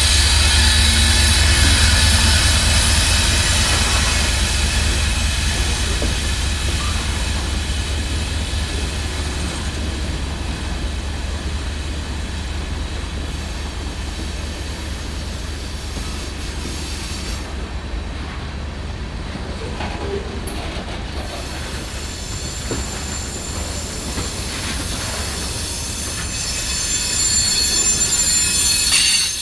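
Freight train rolling past, its wheels squealing on the rail. A deep rumble fades over the first few seconds, and the squeal grows louder again near the end.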